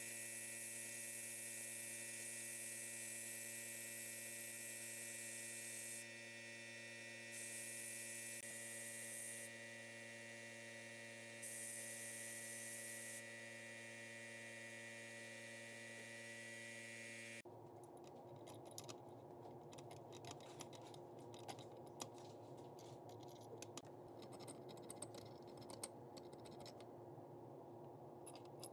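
Abrasive blast cabinet running, a steady hum under the hiss of the blast gun, the high hiss dropping and coming back several times. Partway through this gives way to light scratching and ticking of a steel pick tool picking at a metal nameplate, over a low hum.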